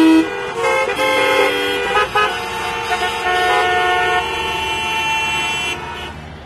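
Many vehicle horns honking together in traffic, several steady horn tones of different pitches overlapping, starting and stopping. They cut out near the end, leaving quieter traffic noise.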